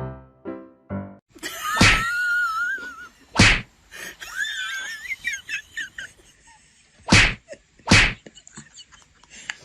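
A few piano notes, then four loud whacks, spaced about one to a few seconds apart, with high, wavering squeaks or whistles in between them.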